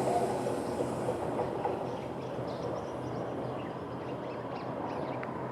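Fukushima Kotsu 1000 series electric train moving away after passing the crossing, its rail noise fading over the first two seconds and then settling to a low steady rumble.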